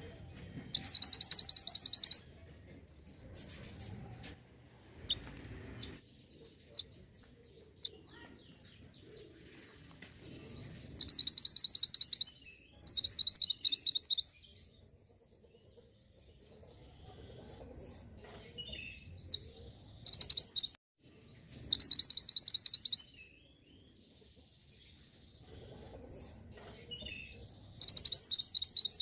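Small songbird singing in loud, high, rapid trills of about a second each, repeated every few seconds with soft chirps in between: a recorded call used to draw a singing response from mantenan birds.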